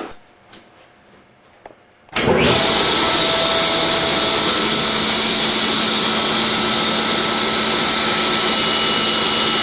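A loud electric machine switched on about two seconds in, spinning up quickly and then running steadily.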